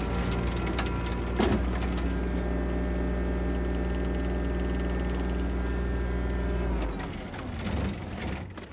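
Engine of farm machinery running at a steady idle, then switched off about seven seconds in, its pitch sagging as it stops; a few knocks follow.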